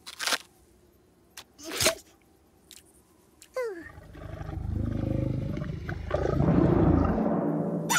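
A cartoon crocodile's low growl, swelling louder over the second half. It follows a few light taps and a short falling squeak.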